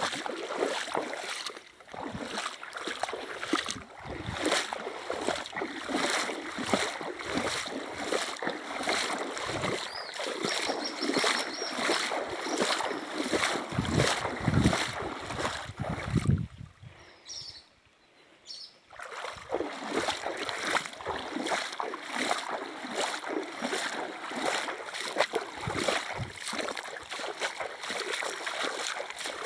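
River water rushing and splashing, with a brief drop to near silence about two-thirds of the way through.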